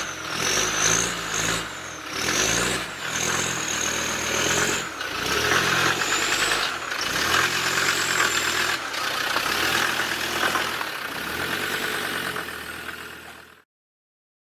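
A vehicle engine running, its revs rising and falling. The sound cuts off abruptly near the end.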